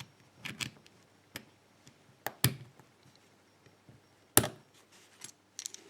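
Scattered sharp metallic clicks and taps of small padlock parts being handled, as a stiff retaining spring clip is worked back onto the lock's core. The sharpest click comes just over four seconds in.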